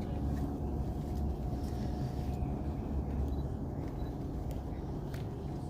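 Steady low outdoor rumble, with a faint thin whine and a few light clicks over it.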